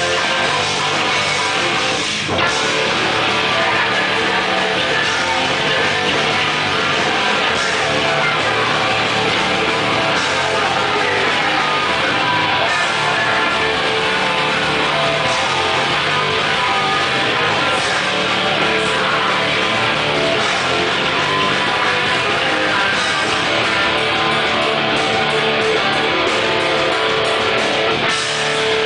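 Hardcore band playing live, loud and continuous, with electric guitars and drums.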